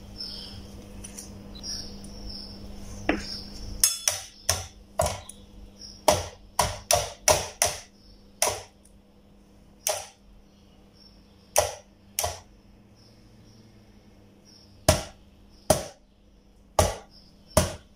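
Sharp metallic clicks and taps of a tool on the bug zapper's wire grid and frame, about fifteen, irregularly spaced from about four seconds in. A low steady hum fades out at about the same point.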